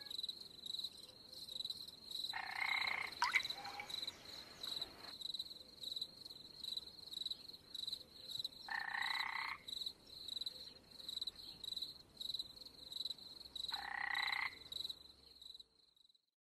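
Night ambience of frogs croaking: three separate calls, each under a second long, spaced several seconds apart, over a faint high chirping that pulses evenly about twice a second.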